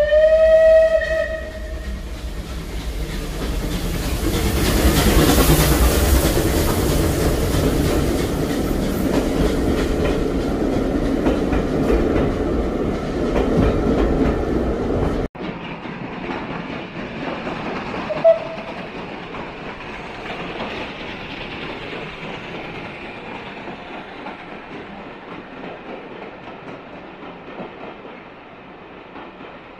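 A steam locomotive's whistle sounds once for about two seconds. A train then runs past loudly on the rails, its noise building over the next few seconds. About halfway through, the sound changes abruptly to a quieter train running, with a short whistle blip a few seconds later, and then fades away.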